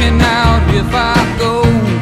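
Background music: a song with a steady beat and a sliding melody line.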